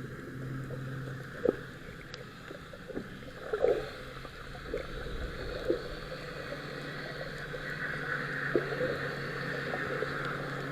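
A boat's engine running with a steady low hum, over a wash of water and wind noise, with a few short knocks.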